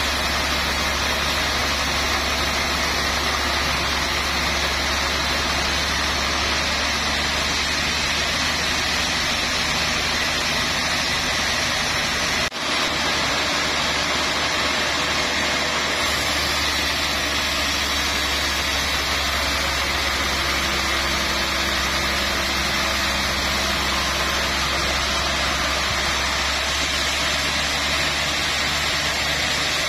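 Large log band saw mill running steadily, a continuous mechanical drone as the log is sawn, with a brief drop in level about twelve seconds in.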